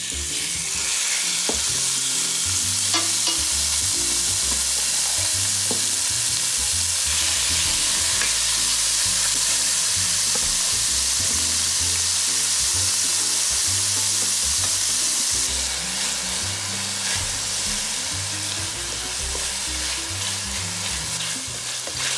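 Seasoned chicken thigh pieces sizzling in hot oil in a stainless steel skillet, browning over medium-high heat. The sizzle starts suddenly as the chicken goes in and eases a little after about fifteen seconds, with a few clicks of a spoon against the pan.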